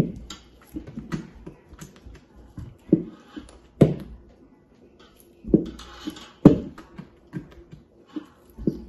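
Wooden spoon working thick fruit cake batter in a large stainless steel bowl: irregular knocks and scrapes of the spoon against the bowl's side, a few strokes a second, some louder than others.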